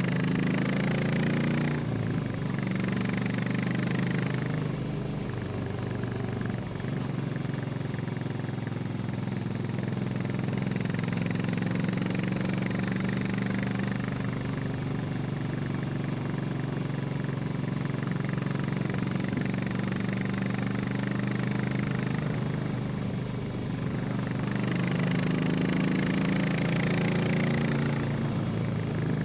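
Royal Enfield Classic 500 EFI's single-cylinder engine thumping through its exhaust on the move, heard from just above the exhaust pipe. The engine note rises and falls with the throttle a few times and swells louder near the end.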